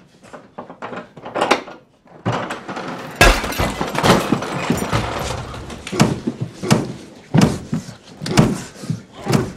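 A rapid series of loud bangs, crashes and thuds, like objects being knocked over and breaking. It starts with light knocks and clicks, grows much louder about two seconds in, and continues as repeated sharp hits.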